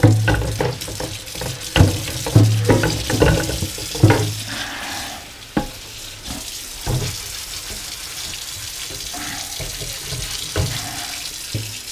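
Kitchen tap running into a sink while a plastic cutting board and knife are scraped and rinsed, with a series of knocks and clatters over the first four seconds, then a steady rush of water; chicken frying in a pan sizzles underneath.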